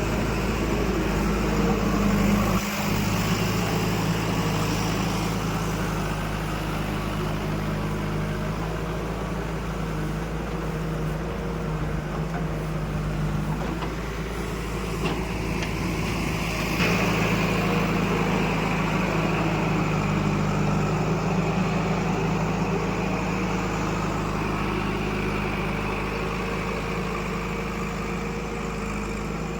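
Heavy diesel machine engine running steadily at a low, even pitch, with small shifts in speed a few times.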